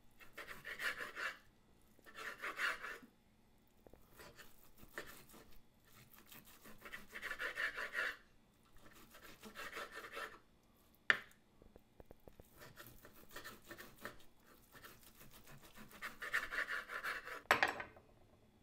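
A serrated steak knife saws back and forth through cooked flank steak and rasps against a wooden cutting board, in about five short bursts of cutting. A sharp knock on the board comes about 11 seconds in, and another near the end.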